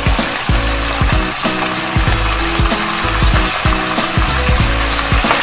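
Miso-and-sake-marinated pork cutlets sizzling steadily as they fry in oil in a nonstick frying pan.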